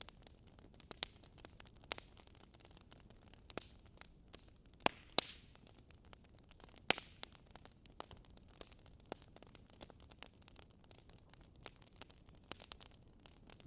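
Fire crackling: scattered sharp pops and snaps over a soft hiss, the loudest pops about five and seven seconds in.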